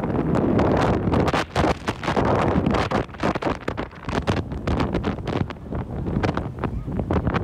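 Wind buffeting the microphone: a loud, uneven rush that rises and dips in gusts.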